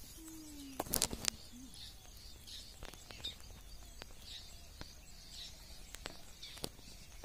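Faint birds chirping on and off, with a few sharp clicks, the loudest a pair about a second in, over a low steady hum.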